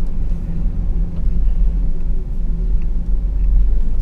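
Dodge Power Wagon driving over a snow-covered trail, its engine running with a steady low rumble, heard from inside the cab.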